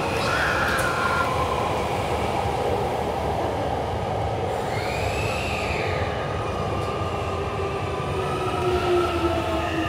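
Hankyu electric commuter train moving through the station: steady rolling noise with whining tones that glide up and down, one arching high about five seconds in and lower ones slowly falling in pitch near the end.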